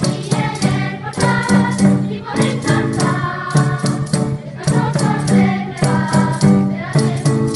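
Christmas carol music: voices singing over jingling percussion that keeps a steady rhythm.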